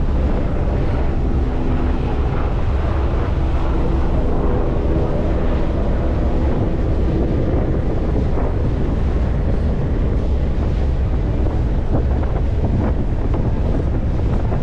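Steady wind buffeting the microphone aboard a Staten Island Ferry, over a constant low rumble of the ferry's engines and the water.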